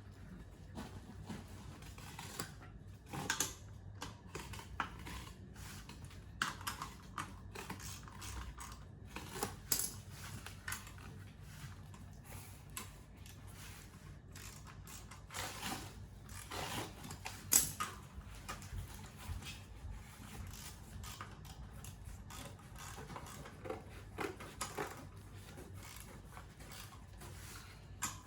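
Irregular light clicks and metallic clinks of a meat slicer's parts being handled and adjusted, with one louder clack about two thirds of the way through.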